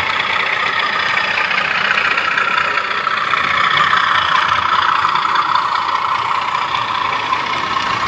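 Model railway trains running along the track, a steady mechanical running noise from the motors and wheels on the rails.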